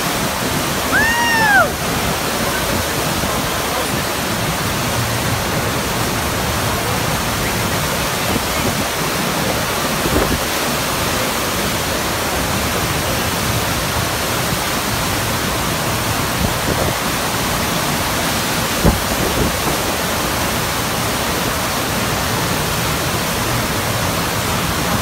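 Steady rushing water from a FlowRider surf simulator, its pumped sheet of water pouring over the riding surface. About a second in, a brief high note rises and falls.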